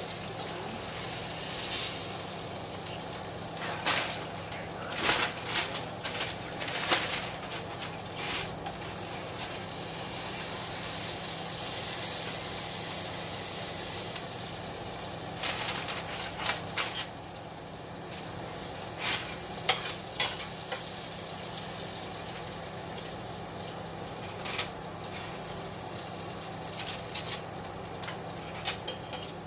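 Hot steak sizzling in an aluminium foil wrap, a steady hiss, with the foil crinkling and metal tongs clicking now and then as the steak is handled.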